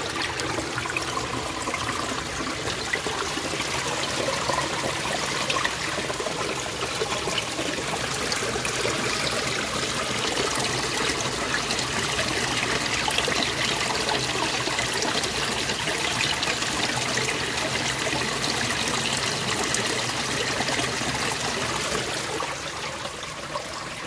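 Stream water pouring and trickling among boulders, a steady rushing splash that eases off a little near the end.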